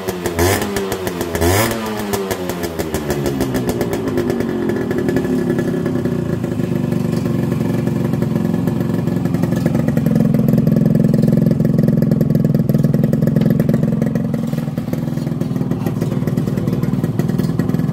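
Yamaha 100 cc two-stroke motorcycle engine blipped twice on the throttle in the first couple of seconds, then held running steadily at a fast idle, a little louder from about ten seconds in.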